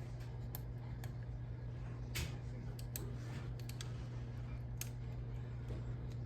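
Scattered light clicks and taps of small hard parts being handled, about seven in all, irregularly spaced, over a steady low hum.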